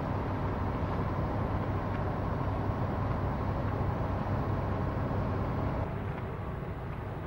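Fireground location sound: a steady low rumble of running fire engines and pumps with a noisy hiss over it. It drops in level and turns duller about six seconds in.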